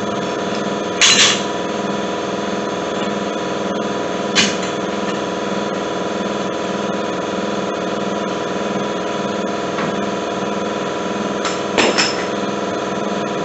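Sharp metal-on-metal knocks from hand tools working on the bush hog's blade mounting: one about a second in, another at about four and a half seconds, and a quick pair near the end, over a steady droning hum.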